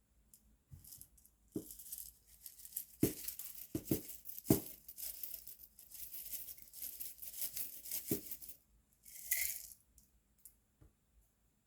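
Slime being squeezed and pressed by hand, making crackling, clicking and popping sounds, with one separate short burst near the end.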